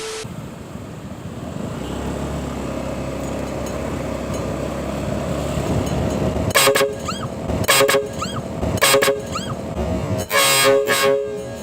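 Loud two-tone truck-style 'Fuso' horn blasting four times over a steady engine hum. Three blasts are short and the last lasts most of a second.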